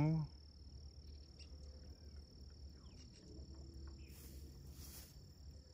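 Insects, most likely crickets, trilling steadily in one unbroken high tone, with a brief rustle about four seconds in.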